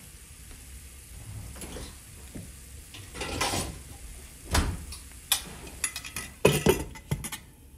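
A glass pan lid clinking and knocking against a frying pan as it is set on to cover the dish: a brief scrape about three seconds in, then a handful of sharp clicks and knocks.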